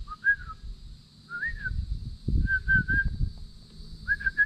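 A songbird singing four short whistled phrases, each rising and falling slightly or made of a few quick repeated notes, about a second apart. Low rumbling thumps sound underneath, loudest around the middle and near the end.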